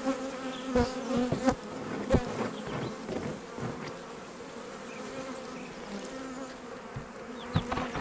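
Honeybees buzzing over the frames of an open hive, a steady hum from a populous colony, with a few sharp knocks in the first two seconds.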